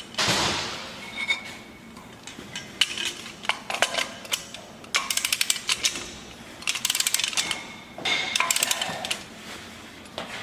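Hand ratchet wrench clicking in quick runs while fasteners are run up on the truck's front suspension, with metal tools clinking between runs. A short rushing noise comes right at the start.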